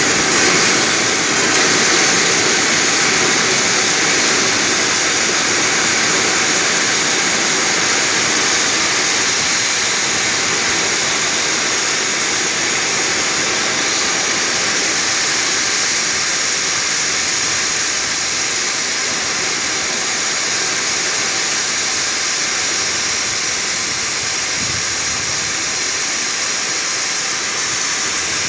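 Pressurised nitrogen blowing R141b flushing solvent and vapour out of the open end of an air conditioner's refrigerant liquid line, a loud, steady hiss of gas and spray. This is the purge stage of flushing a blocked indoor-unit circuit, with solvent still being driven through before only gas comes out.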